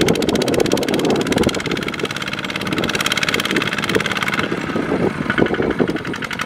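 Diesel engine of farm machinery running steadily with a fast, even thumping.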